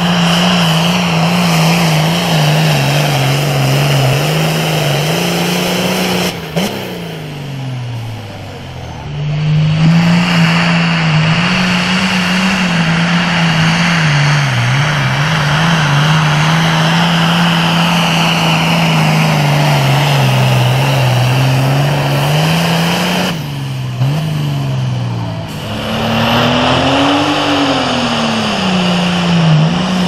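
Super farm class pulling tractors' diesel engines running flat out under load while pulling the sled, the engine note wavering up and down. Twice the engine falls off in pitch and the sound breaks off abruptly as a new pull begins. Near the end the engine rises and falls once.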